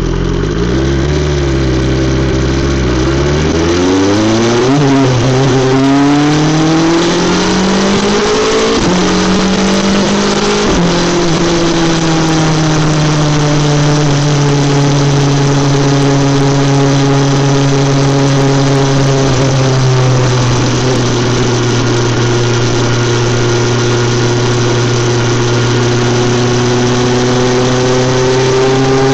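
BMW S 1000 XR's inline-four engine through an Akrapovic exhaust, rising in pitch under acceleration for about ten seconds with a couple of brief breaks. It then settles to a steady cruising note.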